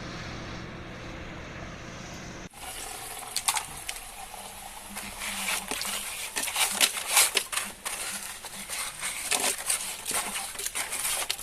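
A steady low hum cuts off about two and a half seconds in. Then come wet, irregular clicking and splashing as a plastic toy truck is handled in water.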